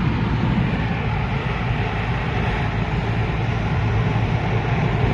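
Steady low rumble and hum of a car's engine and tyres heard inside the cabin while driving.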